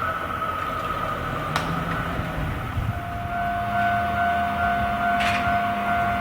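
Japanese railway level-crossing alarm ringing its repeating electronic warning tone, with a lower tone joining about halfway through, over the low rumble of a train.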